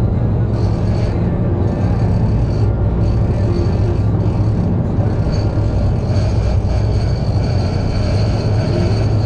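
Boat engine running steadily under way, a loud, even low drone with rushing noise over it.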